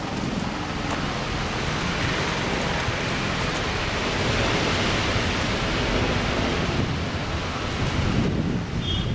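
Wind buffeting the microphone: a steady rushing noise with a flickering low rumble, easing slightly about eight seconds in.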